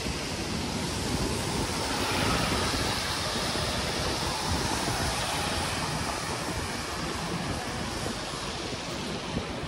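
Steady rush of storm wind from Hurricane Ian, with gusts buffeting the microphone.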